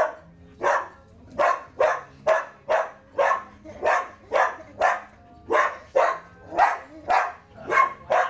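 Black Labrador barking on command in a long, steady run, about two barks a second, counting out its trainer's age as a trick.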